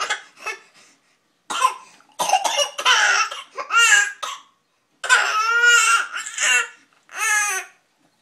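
A person coughing in a run of short, noisy bursts, then breaking into crying with three long high-pitched wails in the second half.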